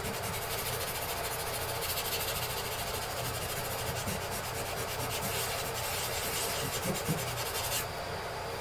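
Wet fine-grit sandpaper rubbed by hand in quick back-and-forth strokes over a patched spot in a fiberglass bathtub's gelcoat, smoothing the cured repair; the rubbing stops near the end.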